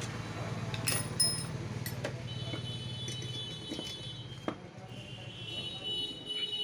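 Light metallic clicks and clinks of a spanner and screwdriver on a water pump motor's shaft as its nut is tightened, over a low steady hum that stops a little past halfway. Thin high ringing tones come in the second half.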